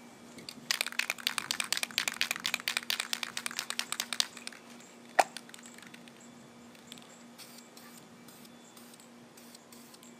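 Aerosol spray paint can being shaken, its mixing ball rattling rapidly for about three and a half seconds. A single sharp click follows, then several short, faint hisses of paint being sprayed near the end.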